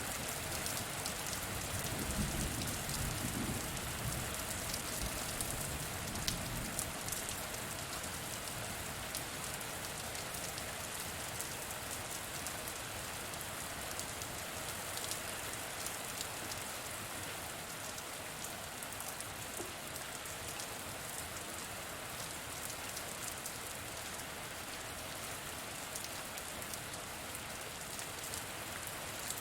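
Steady rain falling on surfaces, a dense patter of drops, with a low rumble of distant thunder dying away in the first few seconds.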